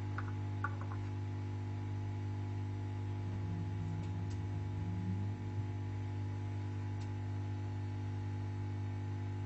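Steady electrical mains hum, with a few faint small clicks about half a second in.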